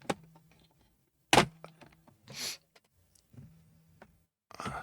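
Handling noise: a few separate sharp knocks and clicks of hard objects being picked up and set down, the loudest about a second and a half in, with a short rustle about a second later.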